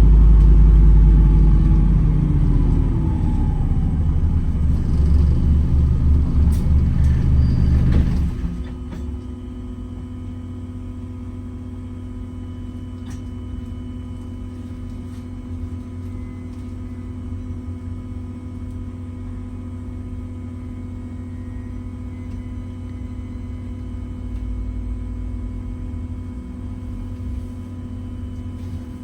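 Wright Gemini 2 hybrid double-decker bus heard from inside, its drive running with a low rumble and a whine that falls in pitch as it slows. About eight seconds in the rumble cuts out suddenly, leaving a steady electrical hum of several fixed tones.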